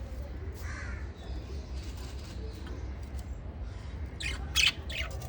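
Small pet parrots calling with short, harsh chirps, with a louder burst of squawks near the end. A steady low hum runs underneath.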